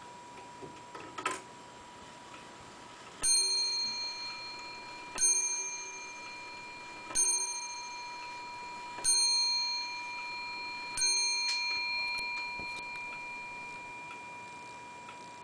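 Warmink Zaanse wall clock with a Hermle 8-day movement striking the hour on its bell: five strokes about two seconds apart, each ringing on and fading before the next, after a short clicking from the movement about a second in.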